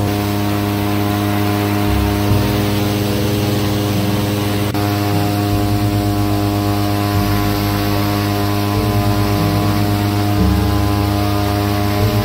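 Airboat's engine and large air propeller running at speed, a loud steady drone, with a rush of wind and spray over it.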